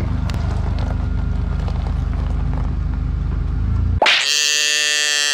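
A low, steady rumbling drone with a fine fast pulse, cut off abruptly about four seconds in by a loud, buzzy, held horn-like tone that stops sharply.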